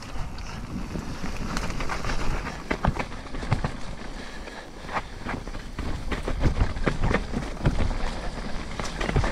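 Ghost Riot enduro mountain bike descending a muddy forest singletrack at speed: steady rush of tyres on dirt and wind, broken by frequent sharp clatters and knocks from the bike over bumps and roots, which come thicker in the second half.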